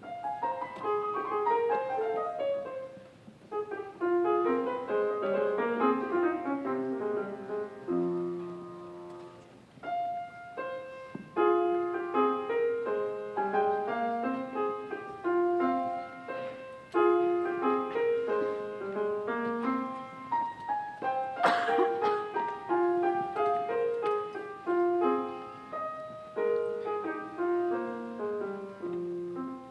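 Solo grand piano playing a busy piece of running notes and chords, with short breaks between phrases. A brief sharp knock sounds about two-thirds of the way through.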